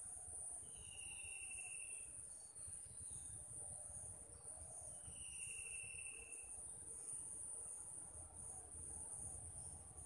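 Steady, high-pitched insect trilling. Two short, slightly falling whistles come about four seconds apart.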